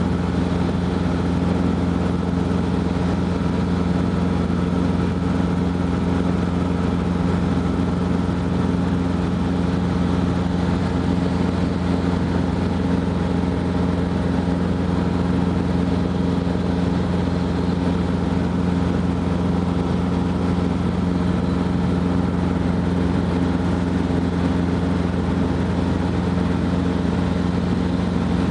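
Robinson R22 helicopter in cruise flight, heard inside the cabin: a steady engine and rotor drone with several held tones, unchanging in pitch and level.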